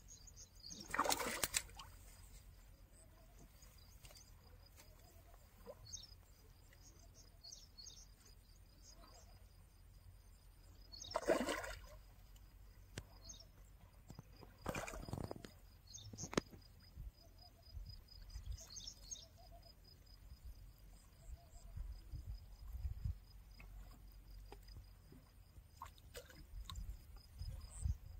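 A hooked fish splashing at the surface as it is drawn in on a hand line: a few short splashes several seconds apart, the loudest about a second in and about eleven seconds in. Faint bird chirps in between.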